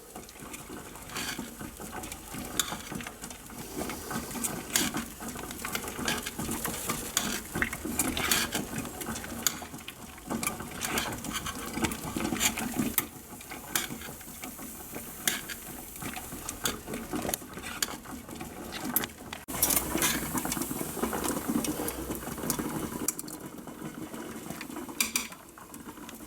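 Stirring a thick herb-and-oil mash in a pot set in a simmering water bath, the utensil knocking and scraping against the pot in irregular clinks.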